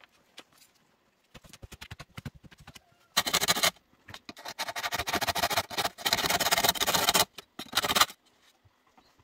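A machete blade sawing back and forth across a green bamboo pole in quick rasping strokes: a lighter run about a second in, then louder, denser strokes from about three seconds in until shortly before the end.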